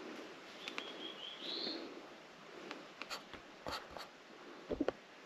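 Pen scratching on paper as the summit register is signed. A short rising bird chirp comes about a second in, and a few sharp clicks and knocks from handling follow near the end.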